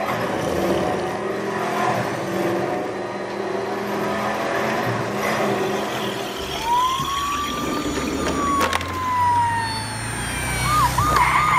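Vehicle engine running, then from about two thirds of the way through an ambulance siren gliding up and slowly back down. Near the end it switches to a fast warbling yelp over a low engine hum.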